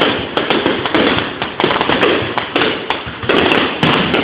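Fireworks display: aerial shells bursting in a rapid, loud barrage of overlapping bangs, several a second.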